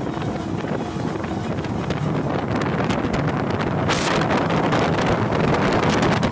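Wind buffeting the microphone over the steady running of twin outboard motors and the rush of the boat's wake at speed. A brief louder hiss comes about four seconds in.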